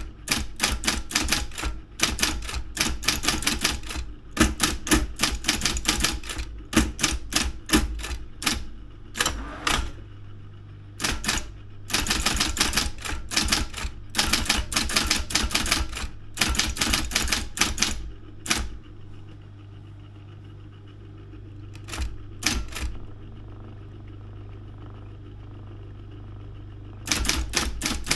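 Daro 202 electric typewriter being typed on: fast runs of sharp key strikes, broken by short pauses. About two thirds of the way in the typing stops for several seconds, leaving the motor's steady hum with a couple of brief strikes, and the typing picks up again near the end.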